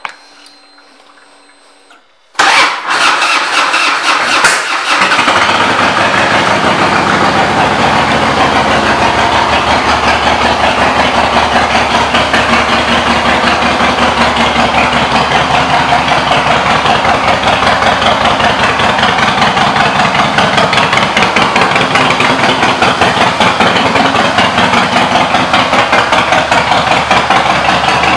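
2004 Harley-Davidson Fat Boy's Twin Cam 88B V-twin with Vance & Hines exhaust pipes, started about two and a half seconds in. It catches after a brief crank and settles within a couple of seconds into a steady idle with an even, fast exhaust pulse.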